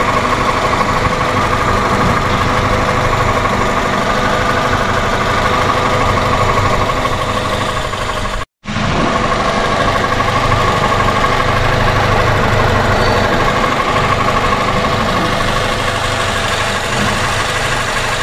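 A car engine idling steadily, with a steady hum and a few held tones. It drops out for a moment about eight and a half seconds in, then carries on unchanged.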